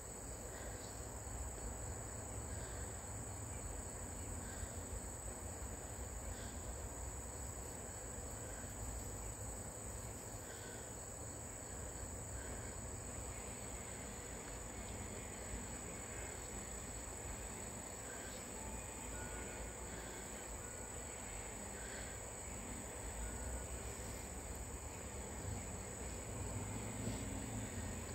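Steady high-pitched trilling of insects, with faint short chirps every two seconds or so over a low background rumble.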